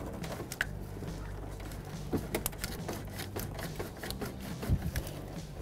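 Scattered, irregular light clicks and taps of hand tools and parts being handled, with one duller knock late on, over a steady low hum.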